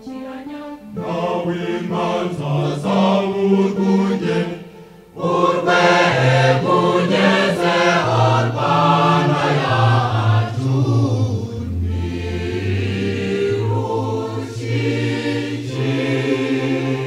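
Choir singing a Kinyarwanda song, dropping away briefly just before five seconds in and then coming back in full and loud.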